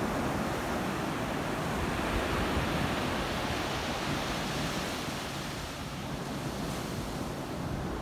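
Rough ocean surf breaking and washing up a sandy beach in a steady rushing wash, with wind buffeting the microphone.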